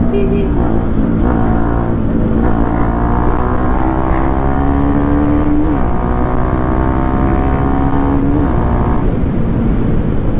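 Motorcycle engine under way, its pitch climbing steadily as the bike accelerates, then dropping sharply twice, about six and eight and a half seconds in, as at upshifts.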